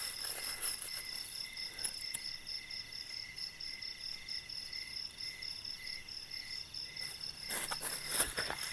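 Crickets and other night insects chirping steadily, an even pulsing chorus at a few high pitches. A few short sharp sounds come near the end.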